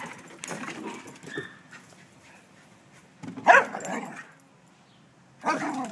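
Terriers barking in play, with a few short outbursts; the loudest comes about three and a half seconds in and another near the end.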